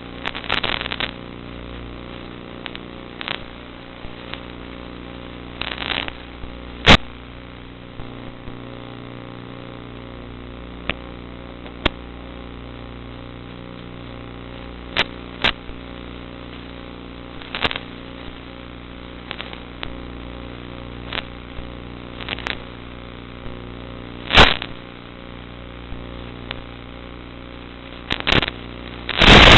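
Steady hum of a Zagi flying wing's motor and propeller as it flies, heard through thin, band-limited onboard audio. Sharp pops and crackles come every second or two, most densely near the end.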